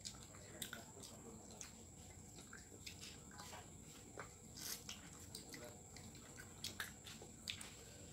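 Faint eating sounds: scattered small clicks and smacks of chewing, and of fingers picking rice and fish from plastic plates. A faint steady high whine runs underneath.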